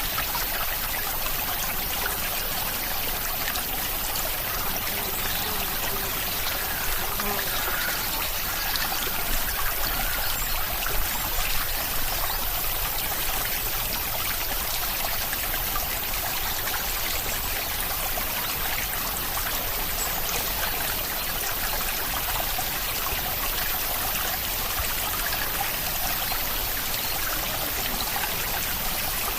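Steady rain falling: a continuous, even hiss of water with no break.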